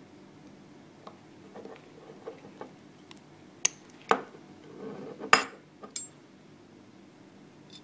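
Pieces of a Hanayama Cast Helix cast-metal puzzle clicking and scraping against each other as the ring is worked through the spiral disc. Four louder, sharp metallic clinks come in the second half.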